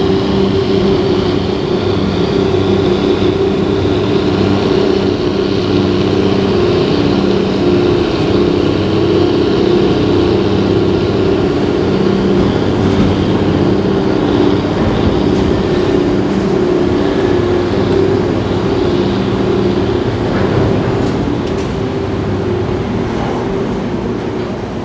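Marine diesel engine running at a steady low drone, with a pulsing throb in its tone; it fades near the end.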